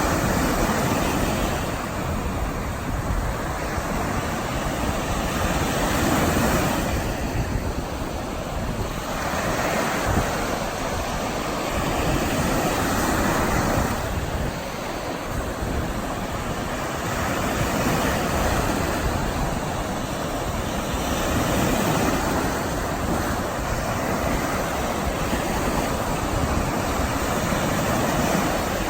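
Waves breaking and washing up at the water's edge of a sandy beach, swelling and easing in surges every several seconds.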